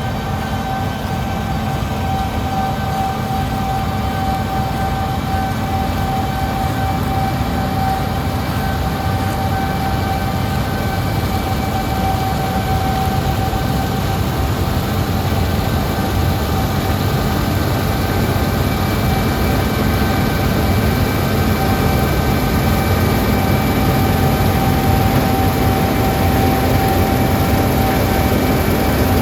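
Combine harvester running steadily while cutting barley: a low engine rumble with a steady high whine over it, growing slightly louder in the last third.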